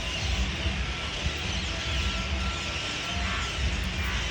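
Massed chattering of a huge flock of parrots gathering at their roost, a dense unbroken din of calls, over a low steady rumble.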